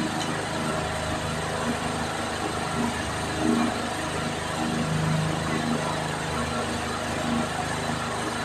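A steady low mechanical hum, like an idling engine, holding an even drone, with a few faint soft sounds over it.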